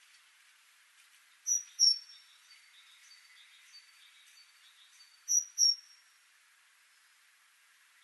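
Great tit singing: two brief snatches of its high, repeated two-note phrase, each snatch about half a second long and the two about four seconds apart, over faint background hiss.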